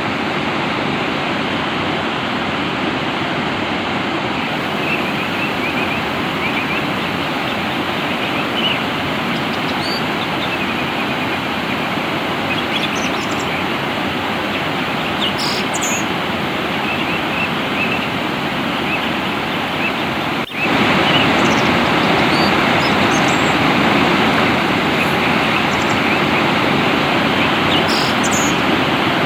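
Steady rush of flowing water, with scattered short chirps from small songbirds above it. About two-thirds of the way through the sound breaks for an instant and returns a little louder.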